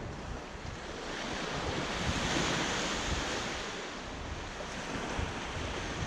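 Small waves breaking and washing up a sandy shore. The wash swells to a hiss about two seconds in and then fades as it draws back, with wind buffeting the microphone underneath.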